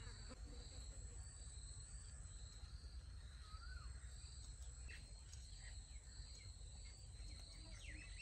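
Faint outdoor ambience: a steady, high insect chirring that pulses about twice a second, over a low rumble, with a short bird chirp about halfway through.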